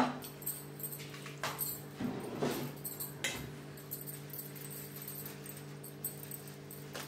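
Wooden spatula scraping and knocking roasted black peppercorns out of a nonstick frying pan onto a steel plate: a sharp knock at the start, then a few short rattles and scrapes over the next three seconds, followed by the softer rub of a cloth wiping the pan. A steady low hum runs underneath.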